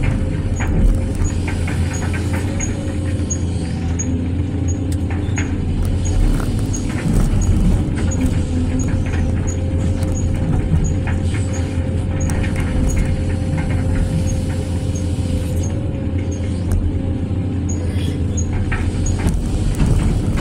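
Excavator's diesel engine running steadily under digging load, heard from the operator's seat, with a steady whine over it. Short knocks and scrapes come as the steel bucket bites into and scoops the loose soil, and a faint high ticking repeats about twice a second.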